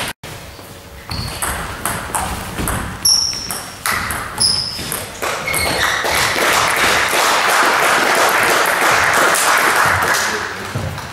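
Table tennis ball hit back and forth, with sharp clicks and a couple of short high pings, then a small crowd applauding for several seconds, fading near the end.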